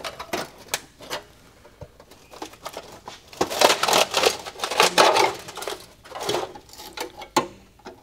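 Screwdriver scraping and prying at the rusted-through steel shell of a muffler, with short metallic scrapes and clicks that are busiest in the middle. The rotted-out muffler is what causes the vehicle's noise.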